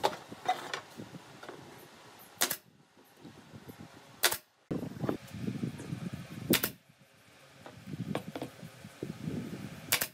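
Pneumatic nail gun firing into pine boards: four sharp shots a couple of seconds apart, with lighter knocks of wood being handled and positioned between them.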